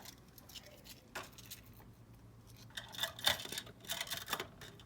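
Small hard plastic toy accessories clicking and clattering as they are handled and set in place, with a quick cluster of clinks in the second half.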